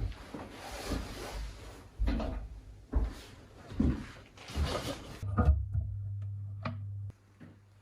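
Kitchen cupboards and drawers being opened and shut, a string of knocks and thumps. About five seconds in, a low steady hum starts and then cuts off suddenly about two seconds later.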